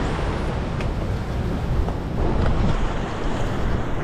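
Steady wind buffeting the microphone over the wash of heavy swell surging against a rock ledge.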